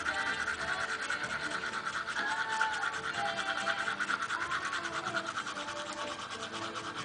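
Rapid toothbrush scrubbing on teeth, and a cockatiel copying it with a fast, rhythmic, buzzy chatter. A few short whistled glides come in around the middle.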